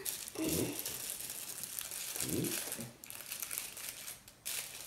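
Tissue paper crinkling and rustling in small hands as a small gift is unwrapped.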